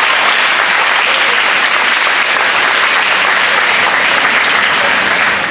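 A large audience of schoolgirls applauding in a hall, a dense steady clapping that fades away near the end.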